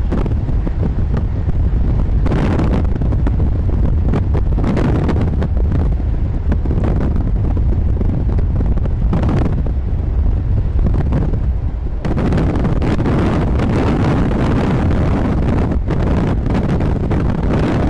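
Strong, gusty storm wind buffeting the microphone near a tornado: a loud, heavy low rumble with surges of rushing noise every second or two.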